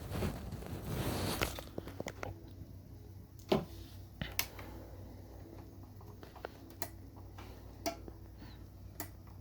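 Handling noise on a window air conditioner's plastic casing and controls: a rustle in the first second and a half, then a handful of sharp, separate clicks and taps about a second apart, over a faint low hum.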